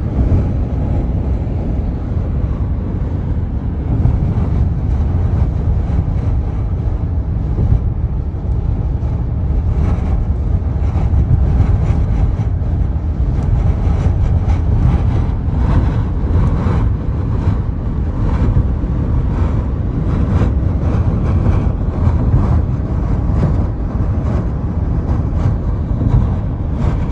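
Strong wind blasting the microphone: a loud, steady low rumble that swells and eases with the gusts.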